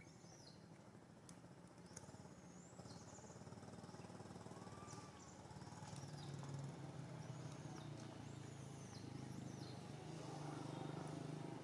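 Faint outdoor ambience: short, high chirps repeating about once a second over a low, steady rumble that grows slightly louder partway through.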